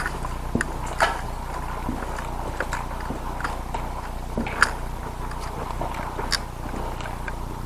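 Scattered crunching steps and sharp clicks from a player moving and handling an airsoft gun, over a steady low hum. The loudest clicks come about a second in and again past the middle.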